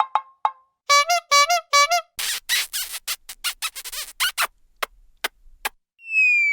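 A string of cartoon comedy sound effects. A quick run of notes ends, then come four short brass-like honks that bend in pitch. A run of rattling clatters follows and slows down, and near the end a falling whistle begins.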